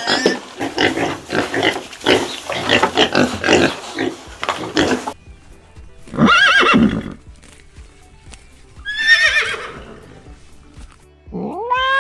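Horse neighing: a burst of rapid noisy sounds for about five seconds, then a loud call about six seconds in and a falling, quavering whinny about nine seconds in, over background music.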